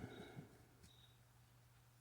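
Near silence: room tone with a faint steady low hum and a few very faint ticks in the first half second.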